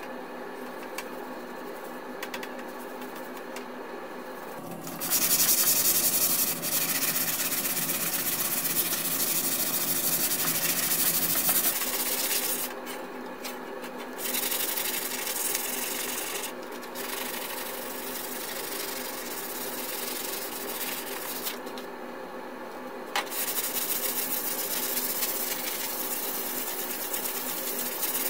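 Abrasive block scrubbed back and forth over the oiled steel plate of an old hand saw, a steady rasping hiss. It starts about five seconds in and stops briefly a few times.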